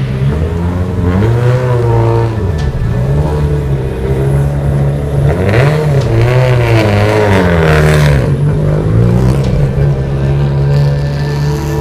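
Subaru rally car's turbocharged flat-four engine idling and being revved, rising and falling in pitch several times, with a hiss around the middle revs. Near the end it settles back to a steady idle note as the car moves off.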